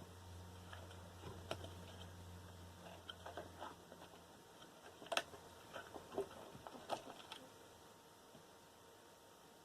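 Faint, scattered clicks and light knocks from small scrap computer parts and bits of copper wire being handled and set down, the sharpest about five and seven seconds in. A low hum sits under the first four seconds and then stops.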